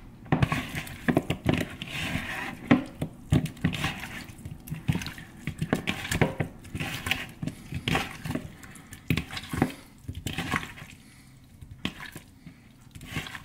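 Wet raw chicken wings squished and turned by hand in a plastic mixing bowl: irregular squelches, slaps and knocks against the bowl, thinning out over the last few seconds.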